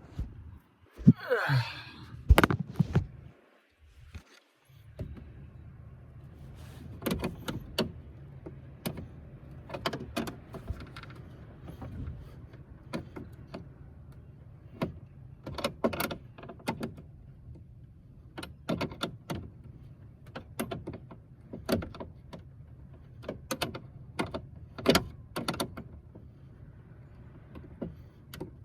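Metal hand tools and wrenches clinking and knocking irregularly over a steady low hum, like someone sorting through wrenches for the right size. Near the start there is a short squeak and a few heavy thuds, then a brief silence.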